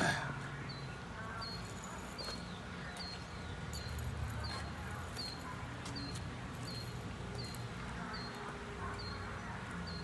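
A short, high chirp repeated evenly about twice a second from a small animal, over a faint low hum.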